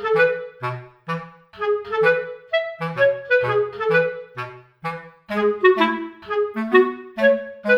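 Background music: a bouncy melody of short, detached notes on a reedy wind instrument over low bass notes, at a steady lively pace.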